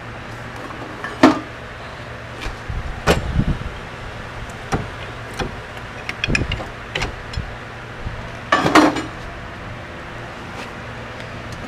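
Scattered knocks and clanks of a brake caliper and tools being handled as the caliper is taken off a front brake, the sharpest about a second in and a double knock near the end, over a steady low hum.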